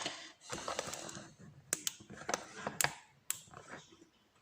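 Euro cylinder lock being gutted after picking: a short scraping rustle of metal parts, then a handful of sharp, separate metallic clicks.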